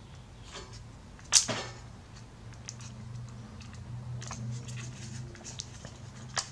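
Plastic clicks and handling noise from a Panasonic HC-V160 camcorder's casing being prised apart by hand, with one sharp snap about a second in and a smaller click near the end.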